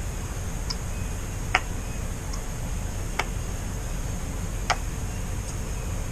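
A handful of sharp, light clicks and taps at uneven intervals, three of them louder, over a steady low background hum.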